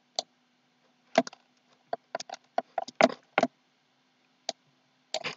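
Irregular sharp clicks of a computer mouse and keyboard, about a dozen, bunched in the middle, over a faint steady hum.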